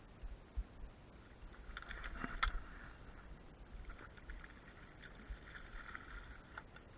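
Fishing reel being wound in two spells, a whirr of fine clicks, as a hooked barracuda is brought in at the surface, with one sharp click about two and a half seconds in. Wind rumbles on the microphone throughout.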